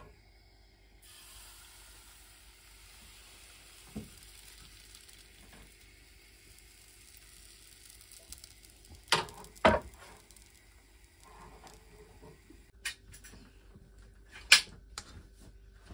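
Thin pancake batter sizzling faintly as it spreads in a hot frying pan, starting about a second in. A few sharp knocks cut through, two close together in the middle and the loudest near the end.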